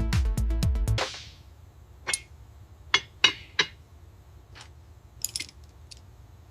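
Electronic dance music with a steady beat stops abruptly about a second in. Then come a few scattered light clinks and taps of metal parts and tools being handled.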